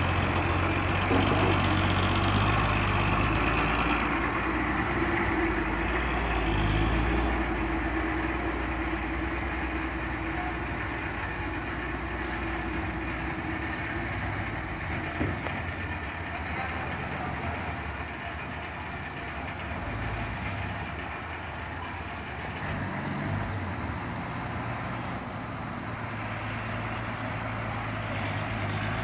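Dump truck engines running steadily while the tipper beds are raised to unload dirt. The engines run louder for the first several seconds and then settle lower.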